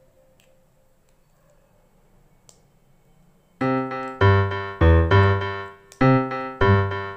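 Very quiet for the first three and a half seconds, then background music starts: a keyboard playing separate struck notes and chords, about two a second, each fading before the next.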